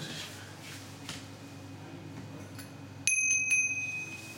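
A small bell struck twice about half a second apart, its clear tone ringing on for about a second before fading.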